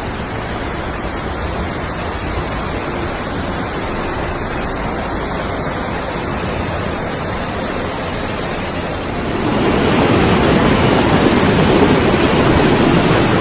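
Steady rushing noise of fast-flowing floodwater, growing louder and fuller about nine and a half seconds in.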